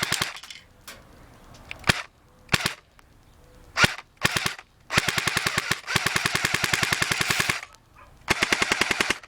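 Cybergun Thompson airsoft gun firing at a phone: several single shots spaced about half a second to a second apart, then two rapid full-auto bursts, the first about two and a half seconds long and the second just under a second.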